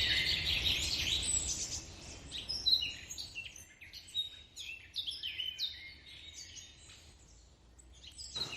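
Birds chirping and calling: a dense chorus of high chirps at first, then separate short chirps that thin out and fade away in the last couple of seconds.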